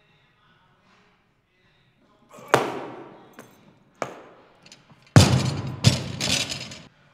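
Heavy weights dropping onto a gym floor. A loud thud comes about two and a half seconds in and a smaller one at four seconds. The loudest and deepest comes just after five seconds, followed quickly by two more hits, each ringing out in the big room.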